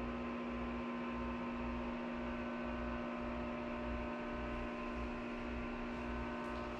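Steady hum: one constant low tone with a ladder of overtones over a faint hiss, unchanging throughout.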